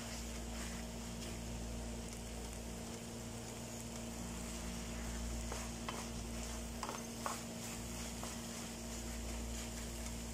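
Noodles frying with a low, steady sizzle in a non-stick pan while a wooden spatula stirs and tosses them, with a few light clicks and scrapes of the spatula against the pan around the middle, over a steady low hum.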